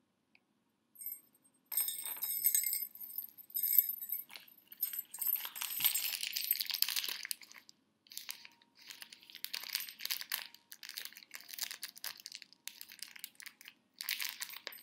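Wrapping paper crinkling and rustling in short irregular bursts as a small Christmas present is unwrapped by hand, with a few bright, clinking sounds about two seconds in.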